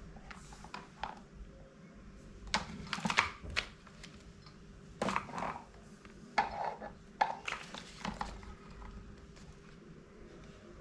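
Parts of a cheap electric fan being handled and fitted together during assembly: scattered clicks and knocks in several short clusters.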